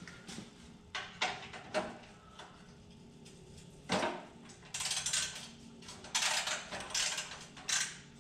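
Metal tool clinks, then several short runs of socket-wrench ratcheting from about five seconds in, as a stubborn carriage bolt is worked on the steel frame of a John Deere 175 riding mower.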